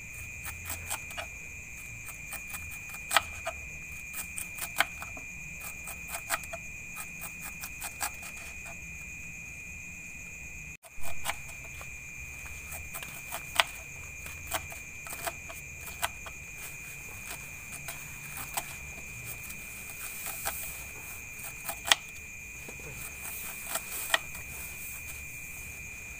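Kitchen knife slicing and shaving a white vegetable held in the hand, giving irregular sharp clicks, a few of them louder. Under it, night insects keep up a steady high-pitched trill.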